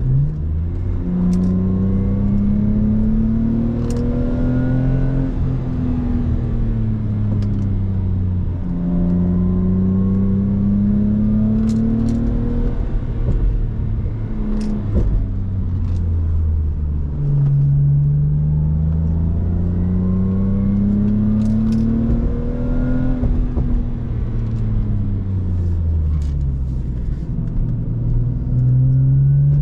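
Lexus IS300's 2JZ-GE straight-six pulling hard on a spirited drive: the engine note climbs under acceleration for several seconds, then falls off as the driver lifts, three times over, and starts climbing again near the end.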